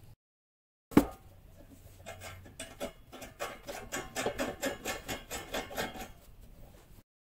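Twisted fixture wires rubbing and scraping against the light fixture's threaded metal tube as they are pulled up through it, in quick scratchy strokes, about five a second. A sharp click about a second in is the loudest sound.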